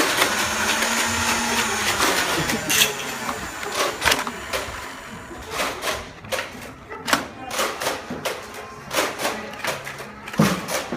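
Electric flywheel Nerf blaster motors whirring for the first few seconds, then a run of sharp clicks and knocks, irregularly about once or twice a second, as the game goes on.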